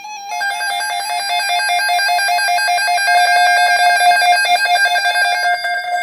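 Emergency alert attention tone: an electronic alarm tone warbling rapidly between two pitches, about ten steps a second, starting about a third of a second in and growing slightly louder.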